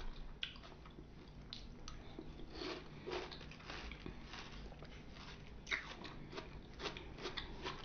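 A person biting and chewing fresh fruit: a run of soft, wet crunches and small mouth clicks.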